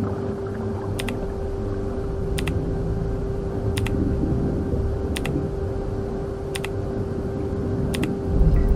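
Commercial front-loading washing machines running a wash, a low rumble under a steady hum, with a sharp click about every second and a half. A deeper surge of rumble comes near the end.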